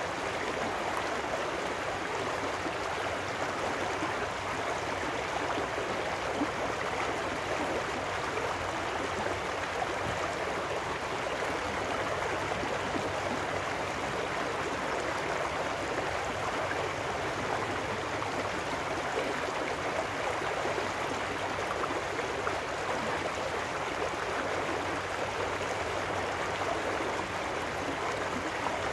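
Shallow trout stream rushing and splashing over rocks in a riffle, a steady, even burble of running water.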